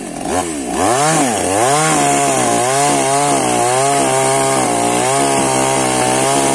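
Petrol two-stroke chainsaw revved up and down a couple of times, then held at high revs from about two seconds in while cutting into a beech trunk, its pitch dipping slightly under load.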